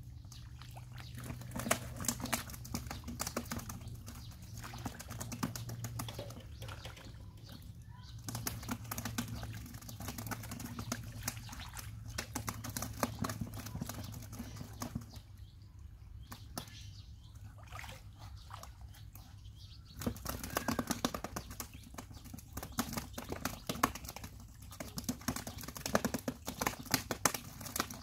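Hands splashing and squelching in shallow muddy water while groping for stranded fish, with irregular wet slaps and patters that come in busy stretches and ease off for a few seconds in the middle.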